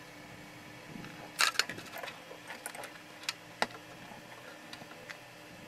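Sharp clicks and light knocks of plastic humidifier parts and wiring being handled during disassembly: a quick cluster of clicks about a second and a half in, then a few single clicks, over a faint steady hum.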